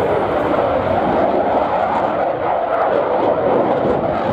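Eurofighter Typhoon fighter jet in display flight, its twin EJ200 turbofan engines making a steady, loud jet noise.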